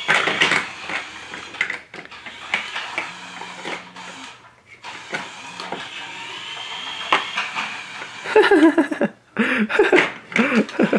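Hard plastic toy pieces clattering and clicking in irregular knocks, with short voice-like warbling sounds near the end.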